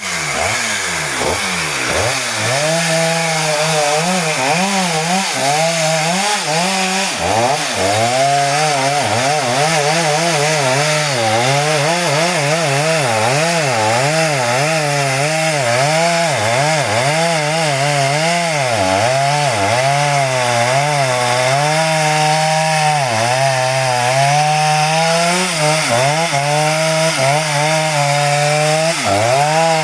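Two-stroke chainsaw running and cutting into nutmeg tree wood, its engine pitch rising and falling over and over as the throttle is worked and the chain bites under load.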